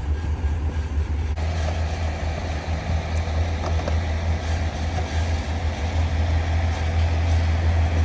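John Deere 7450 self-propelled forage harvester's diesel engine idling, a steady low rumble. About a second and a half in, a steady higher hum joins it.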